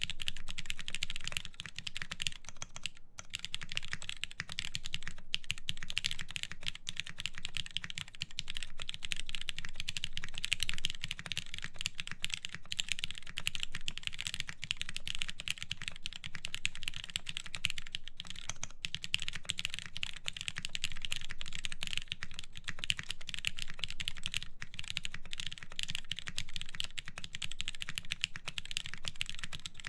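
Continuous fast typing on a mechanical keyboard with lubed Cherry MX Black linear switches, an aluminium full plate and DCS keycaps: a dense stream of keystrokes with a couple of brief pauses.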